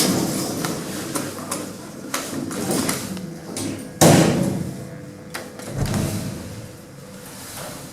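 Lift doors sliding, with several sharp clicks and one loud knock about four seconds in.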